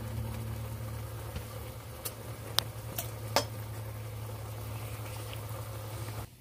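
Pot of eggplant pieces boiling in water, bubbling steadily over a low hum, with a few sharp clicks in the middle. The sound cuts off suddenly near the end.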